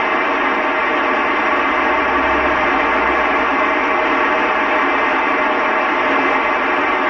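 Loud, steady FM radio static from a 2 m amateur transceiver tuned to 145.800 MHz, the ISS downlink. The receiver's squelch is open with no voice on the channel, during a gap between the station's transmissions.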